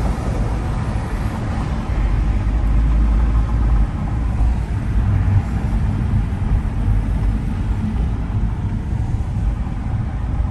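A car driving on city streets, heard from inside the cabin: a steady low rumble of engine and road noise.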